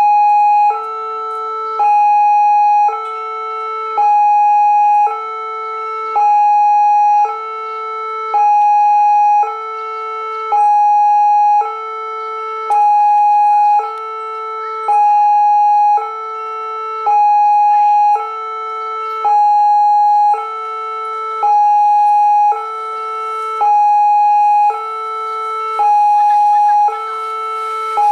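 Railway level-crossing warning alarm sounding for an approaching train: an electronic two-tone signal that alternates between a lower and a higher tone about once a second, steady and loud.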